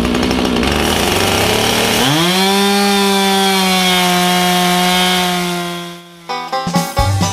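Chainsaw running, then revved about two seconds in to a steady high-pitched full-throttle whine that is held for about four seconds before it drops away. Banjo music comes in near the end.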